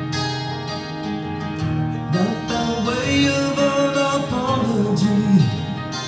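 A recorded song with acoustic guitar and a male singer, played back over a JBL EON ONE column PA system. The guitar plays alone at first, and the voice comes in about two seconds in.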